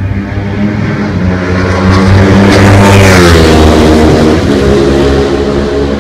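Ducati 848 with an Akrapovič exhaust passing at speed. Its L-twin engine note rises in loudness, peaks about three seconds in and drops sharply in pitch as the bike goes by, then carries on lower as it moves away.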